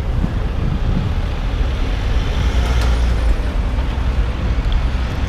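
City street traffic: a steady low rumble of vehicle engines, with a small flatbed utility truck passing close by, a little louder around the middle.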